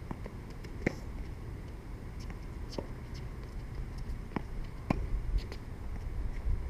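Tennis balls being hit with rackets and bouncing on a hard court during a rally: about half a dozen sharp pops, irregularly spaced a second or two apart.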